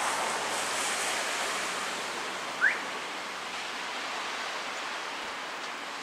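Steady hiss of distant road traffic, with a single short rising bird chirp about two and a half seconds in.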